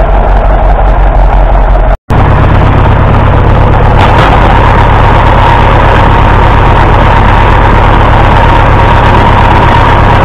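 The engine of an International W450 diesel tractor running steadily and loud, its firing pulses even. About two seconds in the sound breaks off for an instant and changes to a second recording of the engine, and from about four seconds a steady high whine runs along with it.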